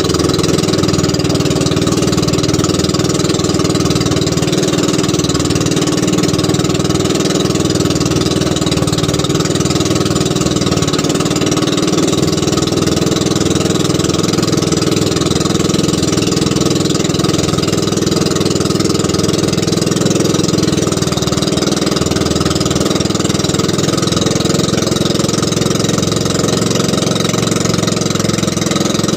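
A small fishing boat's engine running steadily under way, a constant drone with no change in speed.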